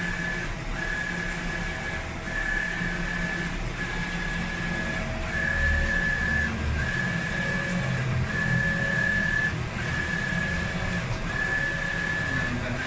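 Roland SolJet EJ-640 wide-format sublimation inkjet printer printing on fabric, its printhead carriage sweeping back and forth. Each pass gives a steady whine of a little over a second that breaks off briefly at every reversal, about ten passes in a row, over a low hum.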